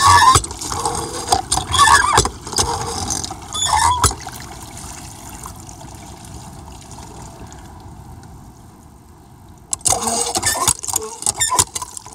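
Hand water pump being worked: about three strokes roughly two seconds apart, each with a squeak and a gush of water. After a quieter stretch, more clatter near the end.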